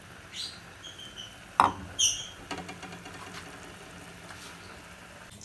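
A few short, high, squeaky chirps and one sharp click about one and a half seconds in, over the faint bubbling of a pot of spaghetti at a boil.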